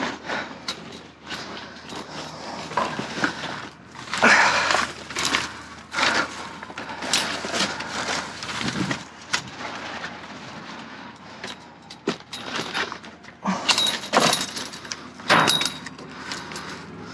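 Rummaging through dumpster contents: irregular knocks, clatters and rustling as items are shifted and handled, with louder bursts of clatter about four seconds in and again near the end.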